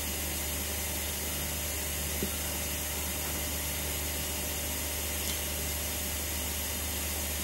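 Steady background hiss with a low, even hum underneath, the recording's own noise floor between the narrator's sentences.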